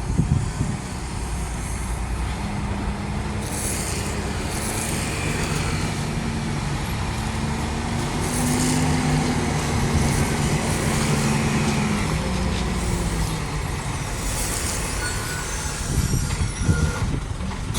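Heavy diesel trailer truck running, its engine note rising slightly and falling back through the middle, with several short air-brake hisses.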